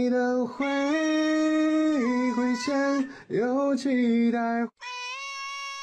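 A single voice singing a slow, unaccompanied melody of long held notes that step up and down in pitch. Near the end it breaks off and returns about an octave higher and softer.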